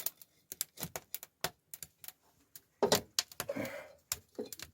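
Wood fire crackling in a fireplace: scattered sharp pops and clicks, with a louder noisy burst about three seconds in.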